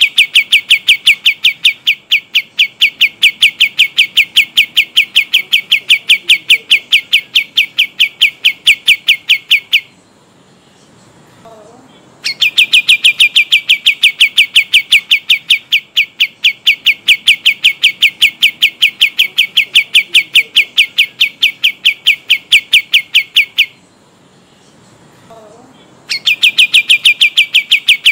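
Kapas tembak bird singing a long rapid trill of sharp, evenly repeated notes, about five or six a second. The trill stops about ten seconds in and again near 24 seconds, each time for about two seconds before starting up again.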